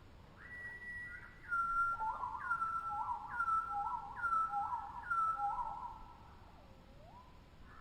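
Tropical birds singing in clear whistled notes: a held whistle, then a falling phrase repeated about once a second, five times, followed by fainter, slower notes that dip and rise again.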